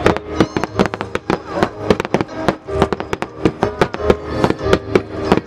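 Music with held tones, and over it many sharp pops and crackles of aerial fireworks bursting at irregular intervals.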